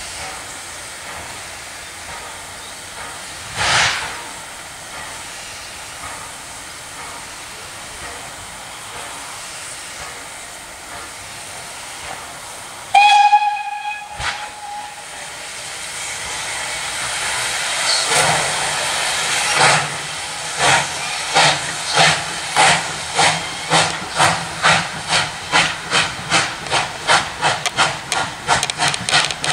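Steam locomotive hissing steadily from its open cylinder drain cocks, then a short, loud steam whistle about halfway through. After that the exhaust starts to chuff in an even beat that quickens as the engine gets under way and pulls off.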